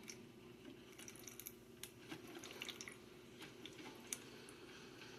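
Faint scattered drips and small ticks from a 12-cup drip coffee maker as hot water begins coming through on its first run. A low steady hum underneath, and one sharper tick about four seconds in.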